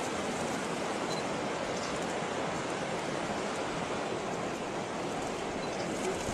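Steady rushing of a mountain river flowing over a rocky bed, an even hiss.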